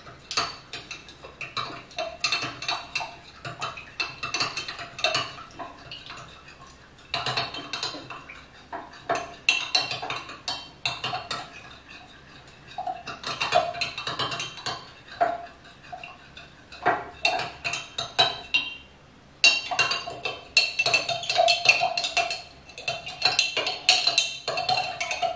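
Metal teaspoon stirring a honey drink in a glass jar, clinking rapidly against the glass. The clinks come in runs that pause and start again several times.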